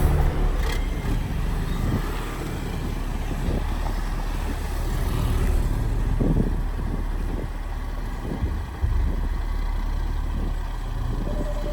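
Heavy vehicle running: a steady low engine rumble with a few short knocks.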